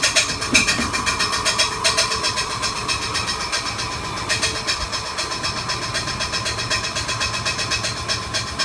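2004 Lincoln Navigator V8 idling roughly, with a rapid, regular ticking over the engine sound; the owner puts it down to something rubbing by the flywheel.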